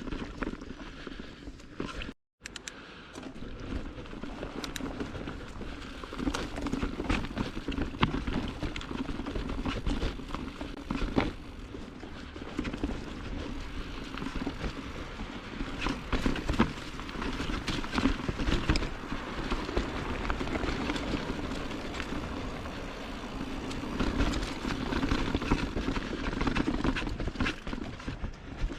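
Giant Trance mountain bike ridden along dirt singletrack: a steady rush of tyres rolling on the trail, with frequent knocks and rattles as the bike goes over rocks and roots. The sound cuts out briefly about two seconds in.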